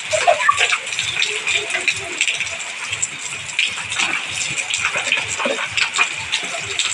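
Heavy rain falling steadily on a concrete alley, with water streaming off a roof edge, and children's voices now and then.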